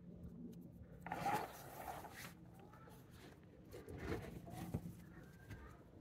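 Faint rustling and handling noises in two short bursts, one about a second in and another around four seconds in, over a low steady hum.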